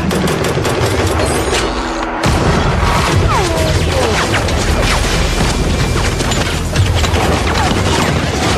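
Action-film fight soundtrack: heavy booms, crashes and hits over a music score, with a sudden loud hit a little over two seconds in.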